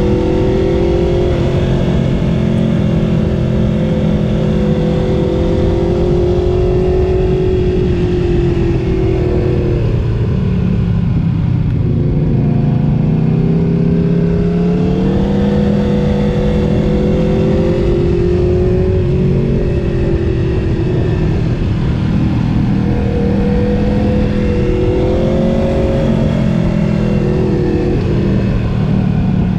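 Motorcycle engine running under way, its pitch slowly rising and falling several times as the throttle opens and closes, with steady road and wind noise underneath.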